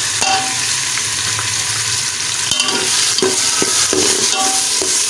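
Minced meat (keema) sizzling as it is tipped into hot oil and fried onions in a metal pot, then stirred with a metal spoon that scrapes and knocks against the pot in regular strokes from about halfway through.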